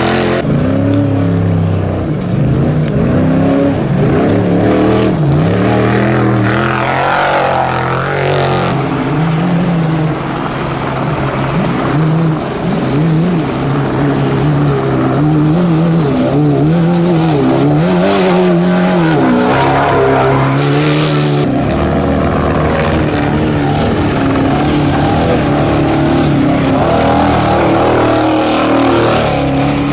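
Trophy Truck Spec off-road race trucks running hard past at close range, their engines revving up and down in repeated rising and falling sweeps as they drive through the dirt course one after another.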